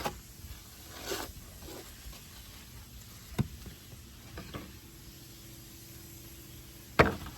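Low background hiss and a faint steady hum, broken by a few sharp isolated clicks, the loudest about three seconds in and another near the end.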